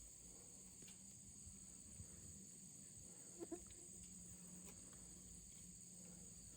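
Near silence: a faint, steady chirring of insects such as crickets in the pasture, with a couple of small soft clicks about two and three and a half seconds in.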